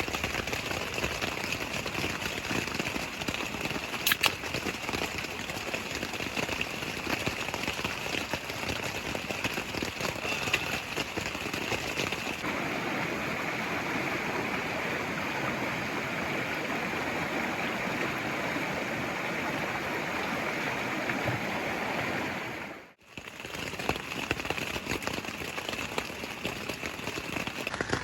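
Steady rain falling with a mountain stream rushing alongside, an even wash of water noise with a few faint drop clicks. It dips away for a moment near the end and then carries on.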